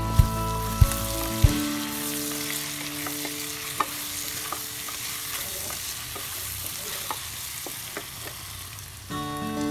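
Pork pieces sizzling in a nonstick wok while a wooden spatula stirs them, with a few light taps of the spatula on the pan. Background music with a steady beat plays for the first second and a half and comes back near the end.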